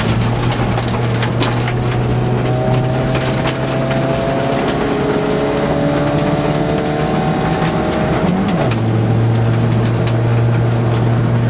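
Inside a VW Golf Mk2 rally car on gravel: the four-cylinder engine under hard load, its note climbing slowly, then changing at about eight and a half seconds, as at a gear change. Gravel clicks and pings against the car's underside throughout.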